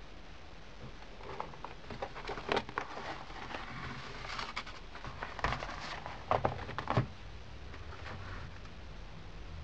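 Keyboard packaging being handled during unboxing: irregular rustling and crinkling with scattered knocks and clicks, loudest about two and a half seconds in and again between five and seven seconds in.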